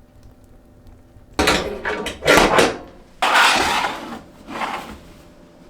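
Handling noises from dinner preparation: a quick run of clattering knocks and scrapes, then a longer scraping rush about three seconds in and a short one after it.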